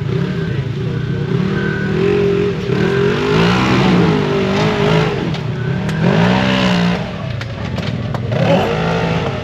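Polaris RZR XP 1000 side-by-side engine revving up and down again and again under load while crawling, its pitch rising and falling every second or two. A few sharp knocks come about seven to eight seconds in.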